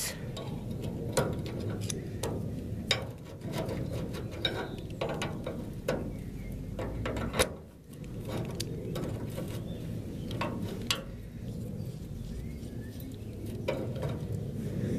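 Metal tools on a rusty wheelbarrow axle nut and bolt: locking pliers and a spanner clicking and scraping at irregular intervals as the nut is wound off, with one sharper click about seven and a half seconds in.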